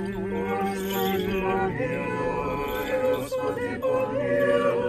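Unaccompanied Orthodox liturgical chant: a man's voice holding a long chanted note, with more voices, higher ones among them, joining in about two seconds in.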